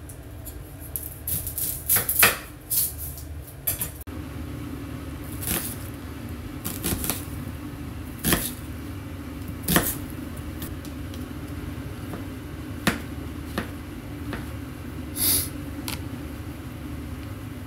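Kitchen work: scattered knocks and clinks of dishes and utensils over a steady low hum.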